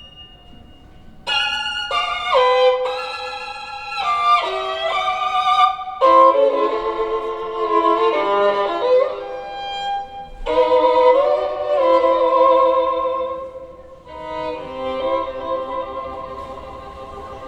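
Recorded violin music played through hi-fi loudspeakers, Børresen Z2 Cryo Edition speakers. It is a bowed melody of held notes with slides between them, coming in about a second in.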